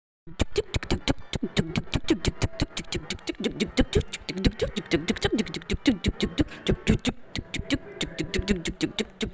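Beatboxing-style vocal percussion: fast, evenly spaced clicks, about seven a second, over low wavering mouth sounds. It keeps a steady rhythm throughout.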